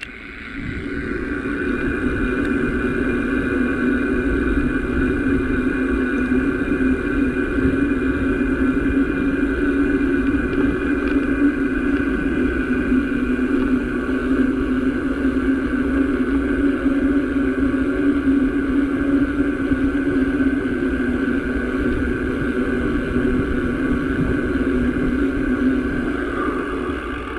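A small engine running at a steady speed with an even, unchanging pitch, fading out just before the end.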